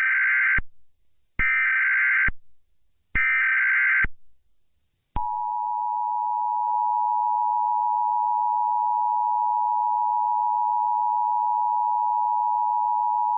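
Emergency Alert System SAME header: three bursts of digital data tones, each about a second long. About a second later comes the EAS attention signal, a steady two-tone 853/960 Hz alarm tone held for about eight seconds.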